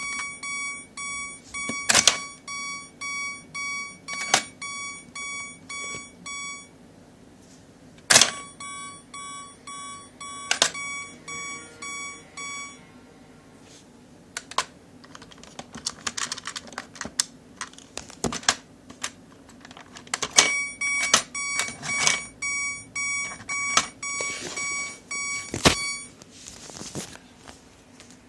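A Plarail Electro level-crossing toy sounding its electronic warning bell, a repeated beep about twice a second. The bell stops and starts again three times, with sharp plastic clicks and knocks in between.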